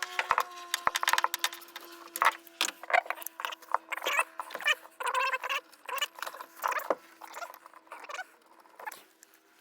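Irregular sharp clicks and light knocks, some with a short ring, like hand tools being handled and worked, over a faint steady hum. The clicking thins out near the end.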